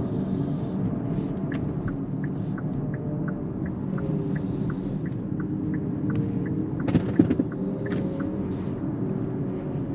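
Steady low tyre and road rumble inside the cabin of a moving Kia EV6 AWD GT-Line electric car. A light ticking comes about three times a second through most of it, and there is a brief louder knock about seven seconds in.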